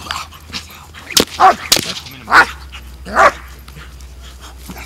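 German shepherd barking at a helper during protection training: about five loud, sharp barks in quick succession, from about one second in to past three seconds in.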